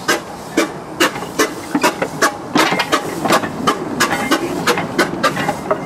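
1906 H.K. Porter compressed-air mine locomotive running, its cylinders exhausting air in sharp, regular chuffs about two to three a second, coming a little quicker after about two seconds.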